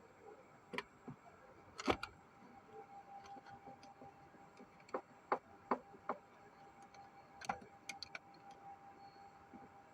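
Scattered sharp clicks and knocks, the loudest about two seconds in and several more in quick succession around five to six seconds, with a faint steady whine that sets in after about two and a half seconds.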